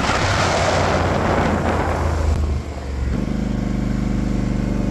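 A vehicle passes by, its rushing noise swelling and then fading over about two seconds. About three seconds in, the steady idle of the Polaris Sportsman 850 SP ATV's engine takes over.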